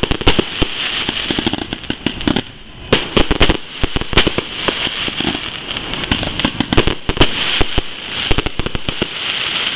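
Fireworks going off in quick succession: many sharp bangs and pops over dense crackling, with a short lull about two and a half seconds in.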